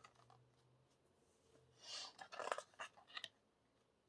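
Album photo cards handled and slid against one another, a short burst of card rustling and light clicks about two seconds in.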